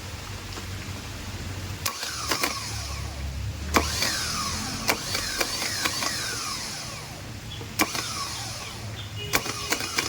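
Rebuilt Tata Sumo Gold starter motor being bench-tested: a series of sharp clicks as it is switched on, with the motor whirring and winding down in falling whines between them. The starter is working properly again after the repair.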